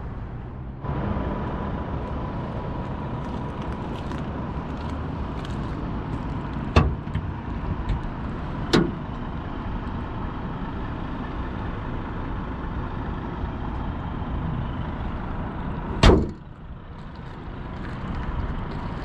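Volkswagen ID.7 electric car driving: steady road and tyre noise with a faint steady high tone, broken by a couple of sharp knocks and a loud thump near the end.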